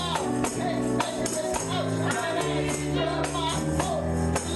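Church gospel music: voices singing over sustained low chords, with a tambourine and percussion keeping a steady, fast beat.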